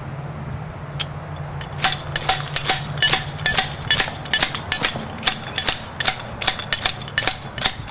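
Metal umbrella-stand spike with a built-in slide hammer, its top sleeve raised and slammed down again and again to drive it into hard-packed dirt: a run of sharp, ringing metallic clanks, about two to three a second. One clank comes about a second in, and the steady run starts about two seconds in.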